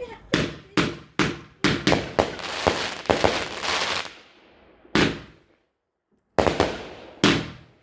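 Fireworks going off: a quick string of about ten sharp bangs, each fading away, then three more bangs spaced further apart.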